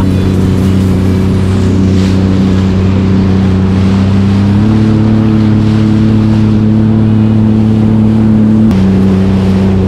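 Jet ski engine running under way across open water, its pitch stepping up about two seconds in and again about halfway, then dropping back near the end, with wind and water rushing past.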